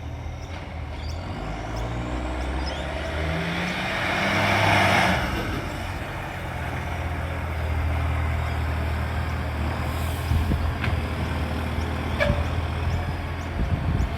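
Diesel garbage truck engine running and then revving up under load, with a loud rasping burst about four to five seconds in from the leaking exhaust. The engine settles back to a steady drone, with a few short sharp clicks near the end.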